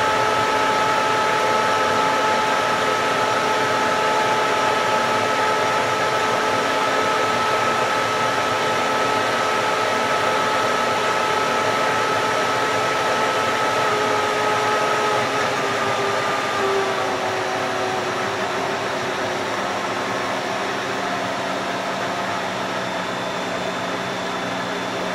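Three-phase milling machine motor running unloaded with its belts off, fed from single phase through a variable-frequency drive: a steady whir with a whine of several pitches that eases slightly lower about two-thirds of the way through. It is being run at about 1750 RPM, its rated speed.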